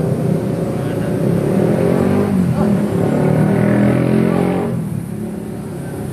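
A motor vehicle engine running close by, its pitch shifting, dropping away about five seconds in.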